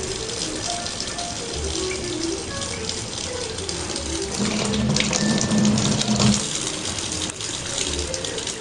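Water running from a tap, over background music with a melody and a low beat. For about two seconds in the middle a louder steady low drone sounds and then stops.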